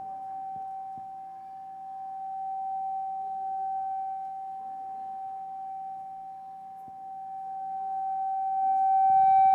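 A single steady high tone of sound-system feedback ringing through the church PA, swelling and easing off, then growing louder near the end.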